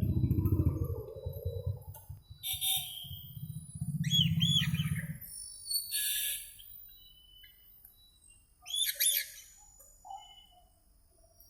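Small caged parrots chirping and calling in short bursts, the loudest call about nine seconds in. A low rattling drone runs through the first second or so and comes back for about a second around four seconds in.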